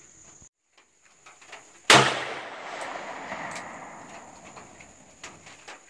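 A single shot from a .357 revolver firing a .38 round, sharp and loud, followed by a long echo that dies away over about three seconds.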